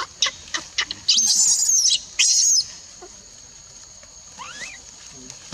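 Baby long-tailed macaque screaming in distress: a few short squeaks, then two long, high-pitched, wavering screams about a second in, then faint rising chirps near the end. This is the cry of an infant whose mother is refusing to let it nurse.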